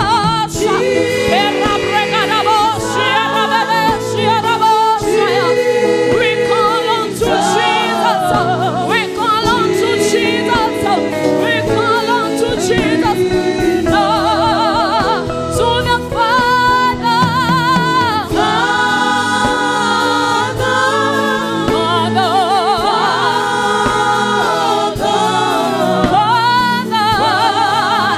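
Gospel worship music: singing voices holding wavering notes over a steady musical accompaniment.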